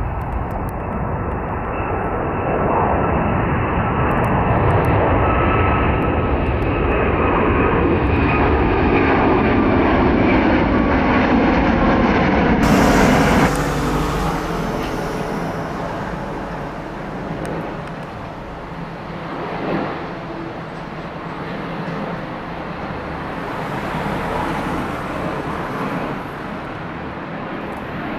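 Jet airliner engines heard close by, the noise swelling to a loud peak with a whine gliding slowly down in pitch. About halfway through there is an abrupt cut to a quieter, more distant jet rumble that rises and falls.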